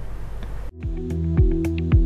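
Background music with a steady beat of low drum thuds and light clicks over held chords. It starts suddenly about two thirds of a second in, after a brief faint hiss.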